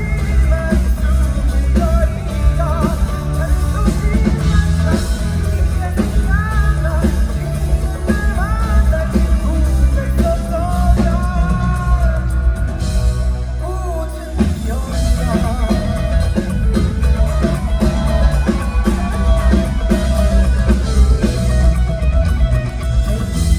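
Live rock-pop band performance: a male singer's voice over drum kit, bass and guitar, the band briefly thinning out about two-thirds of the way through.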